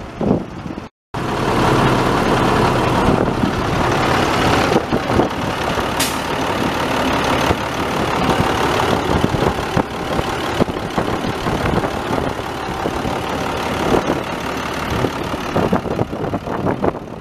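A 2002 International dump truck's six-cylinder turbo diesel engine running steadily at idle, with a single sharp click about six seconds in.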